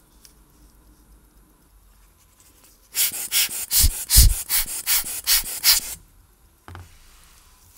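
Rubber hand air blower squeezed again and again, about ten quick puffs of air over some three seconds, blowing dust off a watch crystal. A single light knock follows near the end.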